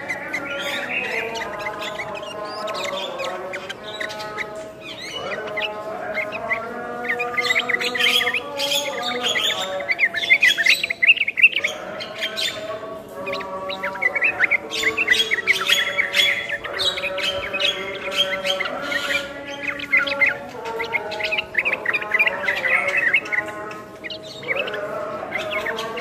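A yellow-vented bulbul sings its bubbling whistled phrases while a Javan myna calls and chatters over it. The song is continuous and dense with overlapping whistles and chirps, busiest about halfway through.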